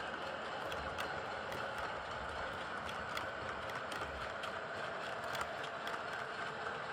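Cavalex Class 60 OO gauge model locomotive running, its motor and gear train giving a steady whirr with small irregular clicks.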